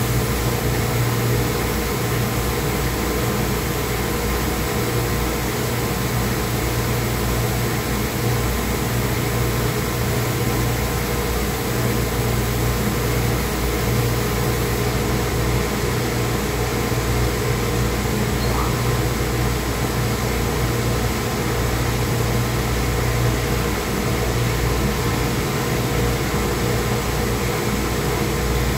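Steady hum of running sludge-dewatering plant machinery: a low drone with a few steady tones over an even mechanical noise.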